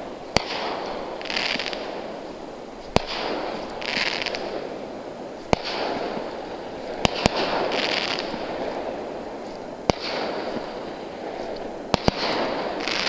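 Fireworks going off: about eight sharp bangs spread every few seconds, two of them in quick pairs, each followed by about a second of crackling.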